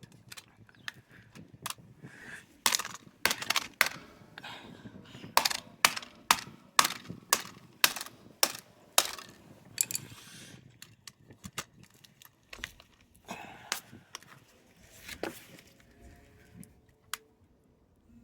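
Screwdriver striking a smartphone over and over: a long run of sharp, irregular clicks and knocks, densest and loudest in the first half, thinning out toward the end.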